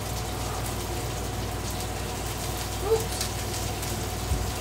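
Burgers and onions sizzling on a hot Blackstone flat-top griddle: a steady hiss.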